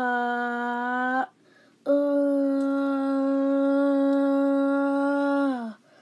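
A person's voice holding two long, steady notes at the same pitch: a short one of about a second, then one of nearly four seconds that sags slightly in pitch as it ends.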